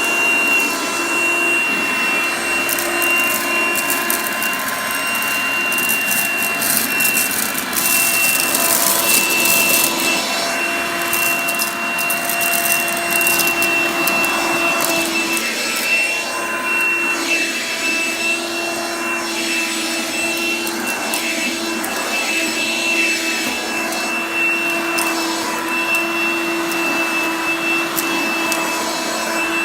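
G-Tech HV01 9.6-volt cordless handheld vacuum running steadily with a high motor whine, fitted with its swivel-top floor head. Crackling rattles of minced dry pasta being sucked up come thickest in the first half.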